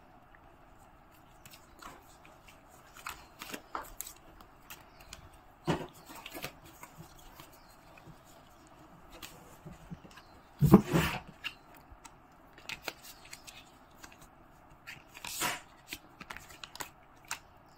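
Tarot cards being handled and shuffled, with scattered short rustles and card clicks. A louder knock comes about eleven seconds in, with another strong rustle a few seconds later.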